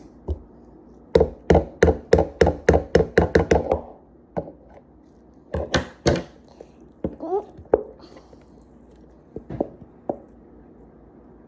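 A quick run of about ten knocks at roughly four a second, then a few scattered knocks, from slime being worked and struck in its container.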